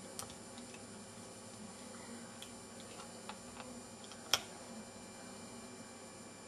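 Scattered small plastic clicks as the case of an Alcatel One Touch 918D mobile phone is pried apart with a thin tool, with one sharper snap about four seconds in.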